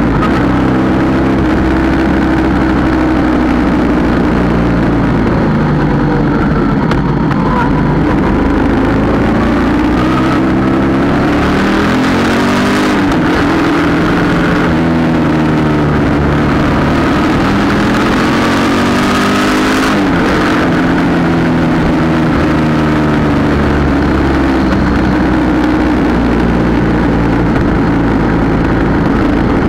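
Yamaha Tracer 700's 689 cc parallel-twin engine running under way, its pitch rising and falling several times as the bike accelerates, shifts and eases off. A rushing hiss swells in the middle, when the bike is going fastest.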